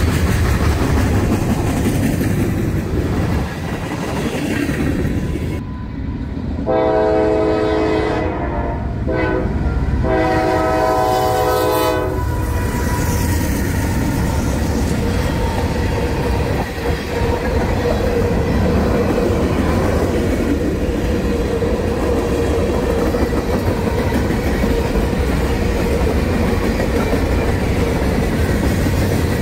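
CSX freight locomotive sounding its air horn in three blasts, about 7 to 12 seconds in, as it passes close by. Around the horn and after it, a heavy freight train of tank cars and boxcars rolls past with a steady rumble and wheel clatter.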